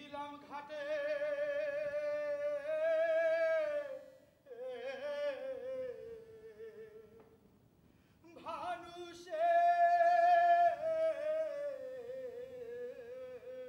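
A lone voice singing long held, wordless notes with a wavering vibrato, each phrase sliding down in pitch at its end, with a short break about eight seconds in.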